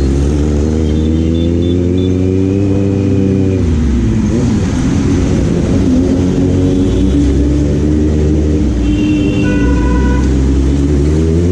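Kawasaki Z900's inline-four engine with the bike under way: the revs climb for about three seconds, fall away sharply, run steadier, then climb again near the end.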